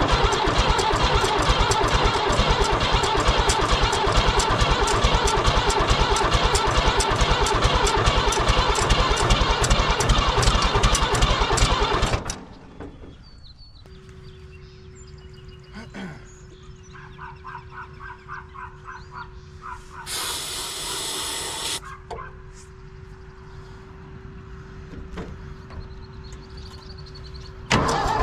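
Cold David Brown tractor engine cranking over on its starter for about twelve seconds without catching, then stopping suddenly. Afterwards it is quieter, with a steady hum and a brief hiss about twenty seconds in.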